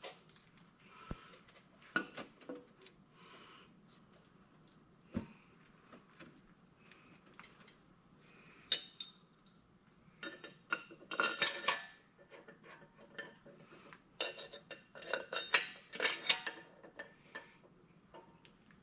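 Metal clinking and light clatter as a cylinder head is set on a GM 6.0 L LQ4 V8 block and its head bolts are fitted by hand. A few single knocks come in the first seconds, then bursts of quick clinks over the second half.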